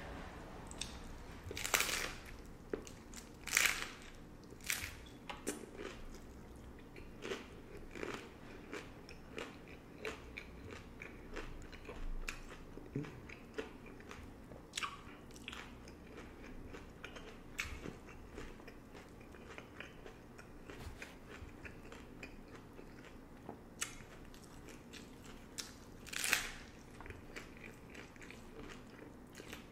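Hard-shell corn tacos being bitten and chewed: a string of crisp shell crunches amid steady chewing, with the loudest crunches about two and three and a half seconds in and again near the end.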